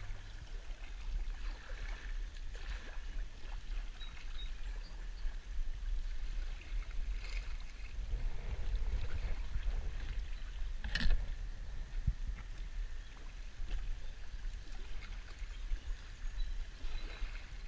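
Kayak paddling on a slow river: paddle strokes in the water with soft splashing, over a low wind rumble on the microphone. One short, sharp hit about eleven seconds in is the loudest sound.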